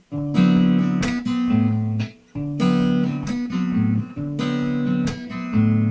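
Acoustic guitar playing a series of strummed chords, each struck sharply and left to ring, with the bass note changing between them: a chord progression played slowly as a demonstration.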